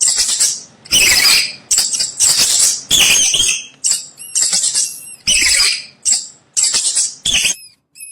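Mouse-squeak sound effect: a run of about a dozen short, high-pitched squeaks, with thinner squeaks near the end.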